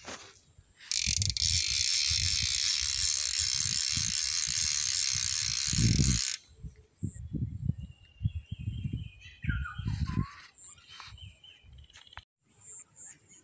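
A small fishing reel's ratchet buzzing as the spool spins fast: a steady, loud rasp lasting about five seconds that cuts off suddenly, followed by a few scattered clicks.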